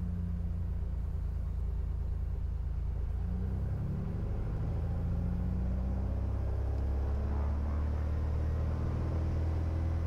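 Piper Turbo Arrow's turbocharged six-cylinder engine and propeller heard from inside the cabin as power is brought up for the takeoff roll: the engine note climbs about three to four seconds in, then runs steady and a little louder.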